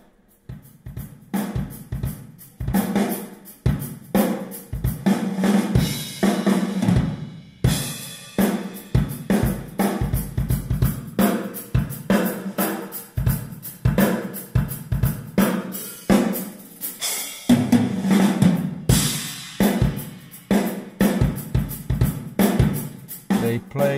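Drum-heavy music with a steady beat, played through a car audio system's pair of 4-inch dash-mounted drivers running as wide-bands on a simple nine-band EQ preset, with plenty of bass. The music starts about half a second in.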